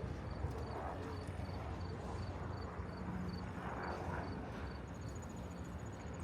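Outdoor background with a steady low hum and an even, rapid high ticking of about two to three ticks a second that stops about three quarters of the way in, giving way to a faint steady high whine; faint distant voices murmur in the background.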